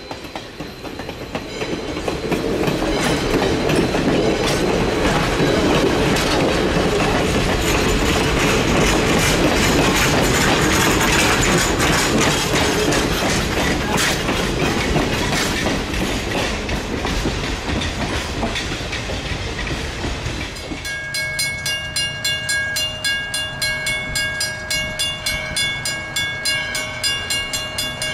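Valley Railroad #40, a 1920 ALCO 2-8-2 Mikado steam locomotive, going past with its train: a loud, dense rush of locomotive and wheels on rail that builds over the first few seconds and holds. About twenty seconds in it gives way to a grade-crossing bell ringing about twice a second.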